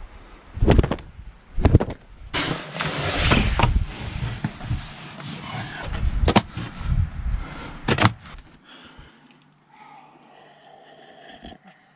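A rug and a floor mat being shaken out and slapped, giving about four sharp slaps with rustling and flapping between them; it goes much quieter near the end.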